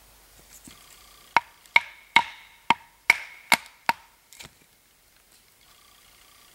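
Batoning a knife to split kindling: a wooden baton strikes the knife's spine seven times in quick succession, each hit with a short metallic ring from the blade, then one lighter knock.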